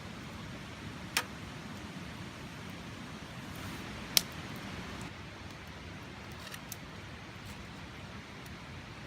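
Steady outdoor background noise with two sharp clicks or pops, one about a second in and a louder one about four seconds in, and a few faint ticks later.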